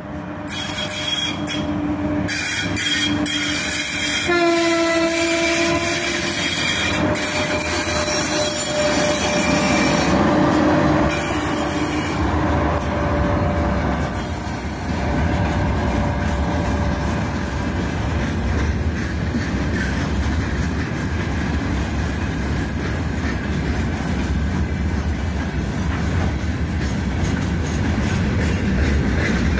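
A 3ES5K 'Ermak' electric locomotive sounds its horn several times as it approaches, in held blasts during the first dozen seconds. Its long freight train of open gondola wagons then rolls past, the wheels making a steady rumble and clatter over the rail joints.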